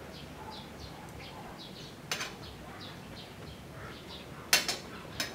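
Metal spoon and fork clinking against a ceramic plate while eating: a sharp clink about two seconds in, then two or three louder ones near the end. Under them, a bird chirps over and over in short, quick calls.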